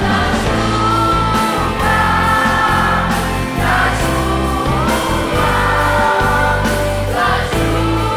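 Adolescent choir singing a Christian worship song with instrumental accompaniment, the voices holding long notes over a steady bass.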